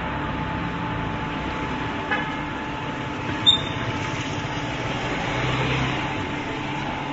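Steady machine hum under a constant background noise, with a faint tap about two seconds in and a short, sharp high clink about three and a half seconds in.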